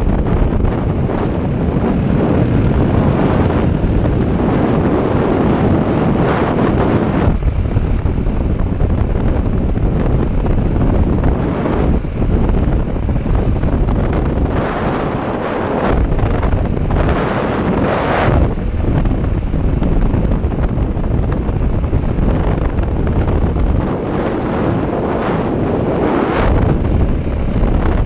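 Loud, steady wind noise buffeting the microphone over the running of a vehicle, surging now and then.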